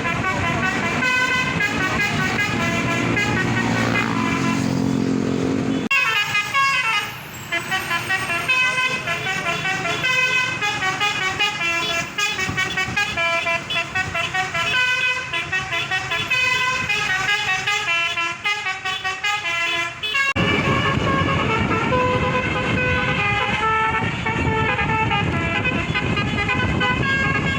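Tour bus's Basuri telolet horn playing a fast melody of stepped horn notes, with a falling glide about six seconds in. A low rumble runs under it for the first six seconds and again from about twenty seconds in.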